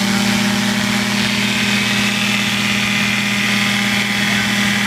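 Raven ultralight's Rotax 503 two-stroke twin engine running steadily at a low, even speed with the propeller turning, as the plane taxis on grass before takeoff.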